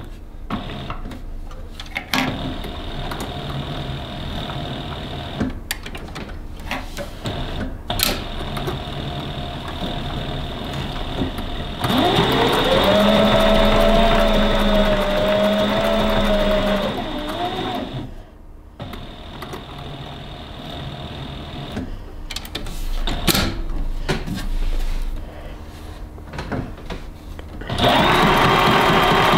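Tandy Stitchmaster Pro leather sewing machine stitching through leather: slower, uneven stitching with needle clicks, broken twice by the machine speeding up to a steady fast run with a rising then level whine. The first fast run comes about twelve seconds in and lasts about five seconds; the second comes near the end.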